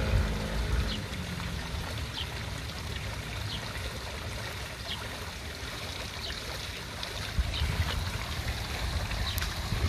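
Steady running and trickling water in a shallow fountain basin where a dog is wading. A faint high chirp repeats about once a second.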